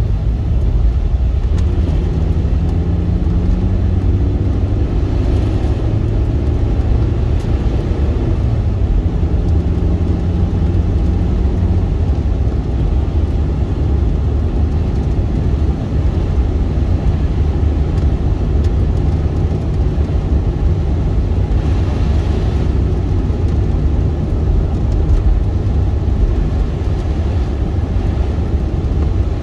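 Steady low road and engine rumble inside the cabin of a 2001 Suzuki Swift (1.3-litre four-cylinder) driving on a slushy, snow-covered road, with a faint engine hum coming and going. There is a brief swell of hiss about 22 seconds in.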